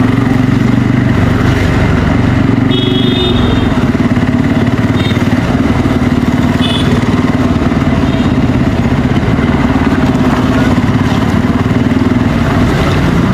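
Bajaj Pulsar N250's single-cylinder engine running steadily through its stock exhaust while riding. Short horn beeps from traffic come about three seconds in, then a few more over the next five seconds.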